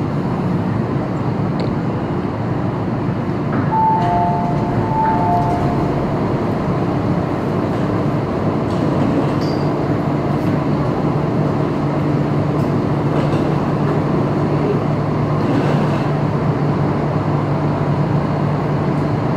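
Steady rumble and hum of an MTR Kwun Tong line metro train heard from inside the car while it stands in the tunnel, with no wheel or track rhythm. About four seconds in, a brief two-note tone sounds twice.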